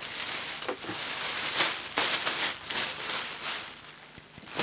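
Clear plastic bag rustling and crinkling as it is pulled off a cylinder vacuum cleaner.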